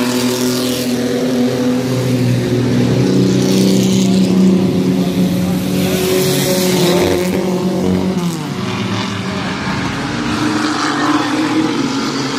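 Several mini-truck race engines running hard around the oval together, their pitches rising and falling as the trucks pass and accelerate.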